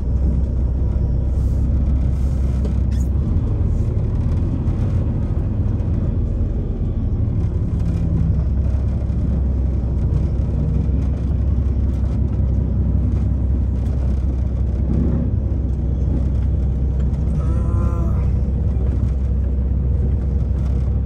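Semi-truck's diesel engine running, heard from inside the cab as a steady low rumble. A brief higher-pitched tone sounds near the end.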